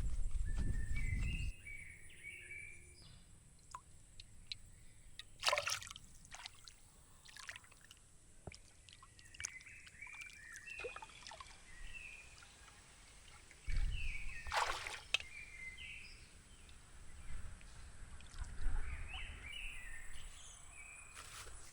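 Small birds chirping on and off in short clusters, over a low rumble that stops about a second and a half in and returns in the second half. Two brief rushing noises stand out, one a few seconds in and the louder one just before the middle of the second half.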